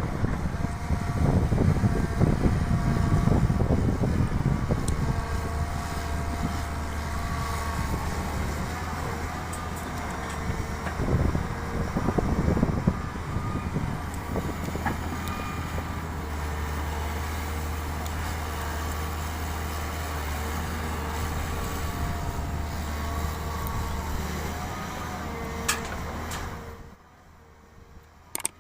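Volvo EW160B wheeled excavator's diesel engine running steadily under working load, with a whine that shifts in pitch as the machine digs and loads. The engine sound drops away suddenly near the end.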